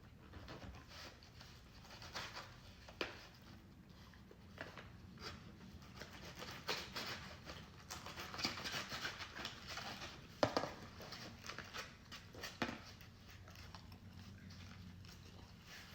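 People eating: chewing, with scattered sharp clicks and taps of food handling, busiest from about six to eleven seconds in. The loudest click comes about ten and a half seconds in.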